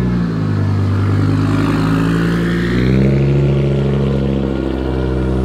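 Audi Sport Quattro S1 E2 Group B rally car's turbocharged five-cylinder engine running at low revs as the car pulls away slowly. The pitch drops just after the start and rises again about three seconds in.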